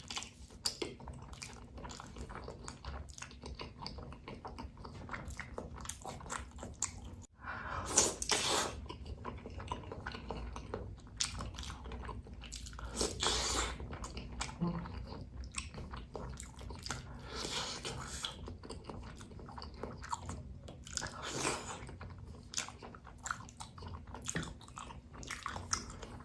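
A person eating bakso (Indonesian meatballs) close to the microphone: biting and chewing with many small wet mouth clicks, and a few short louder hissing bursts, the loudest about eight seconds in.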